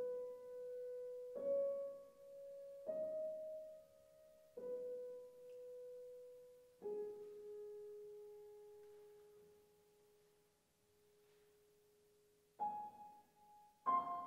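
Grand piano playing a slow line of single notes, each struck and left to ring and fade, about seven in all. One note, struck about seven seconds in, rings on for several seconds before two more notes near the end.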